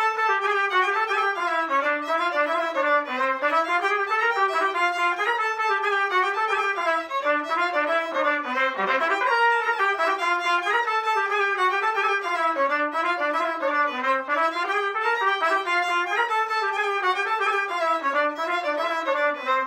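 Violin and trumpet playing a Romanian hora from Bucovina together, the violin carrying a quick, running melody line.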